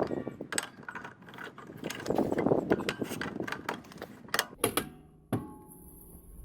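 Hand tools working on metal brake parts: irregular clicking and clanking, with a few sharp knocks near the middle, then quieter.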